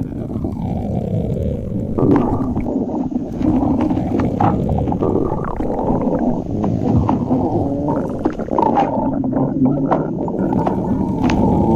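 Stomach growling: a continuous gurgling rumble broken by many small pops.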